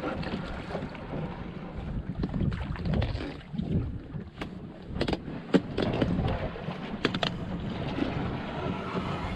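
Wind buffeting the microphone over water sloshing around a small boat in shallow water, with several sharp knocks between about four and seven seconds in.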